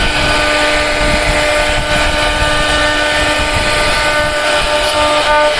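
CNC wood router spindle running steadily: a whine of several steady tones over a constant hiss.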